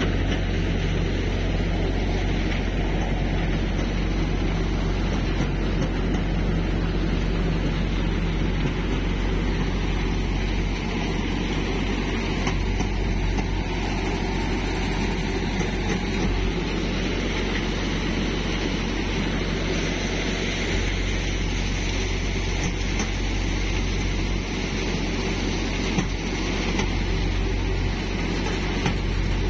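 Tractor-driven Malwa paddy multi-crop thresher running steadily, its drum spinning as sunflower heads are fed in, with the tractor's engine running under it.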